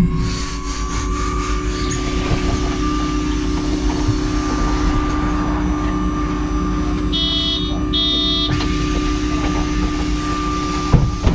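City bus at a stop, its engine running with a steady hum and whine. About seven and eight seconds in come two short beeps, and a sharp thump comes near the end.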